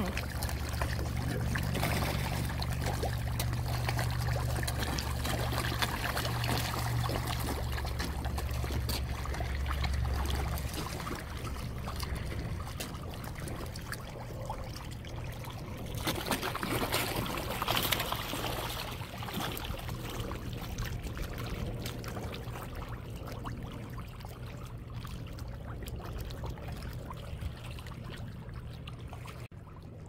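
Many carp splashing and slurping at the water surface, a dense crackle of small splashes and gulps that thins out over the second half. A low steady hum sits under the first ten seconds or so.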